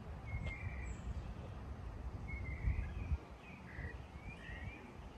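Birds chirping with short, scattered calls over a low outdoor rumble that drops away about three seconds in.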